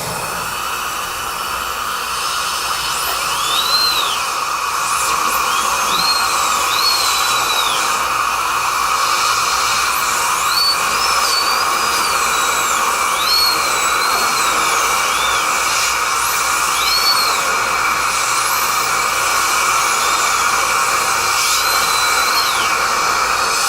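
Dentist's high-speed drill whining in repeated short arcs that rise and fall in pitch as it cuts, over a steady hiss from the dental suction tool, heard from the patient's chair.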